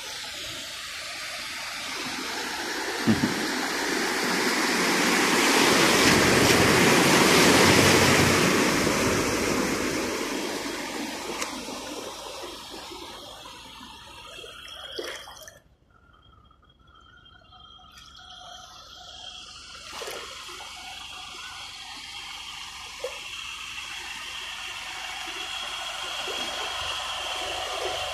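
Pickup truck ploughing through floodwater: the rush and wash of water swells as it comes past, peaks about seven seconds in, and fades away. A quieter rush of water builds again toward the end.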